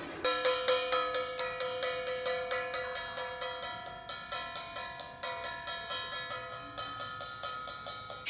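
Stainless steel mixing bowl struck rapidly, about four or five strikes a second, ringing on in several steady tones between the strokes.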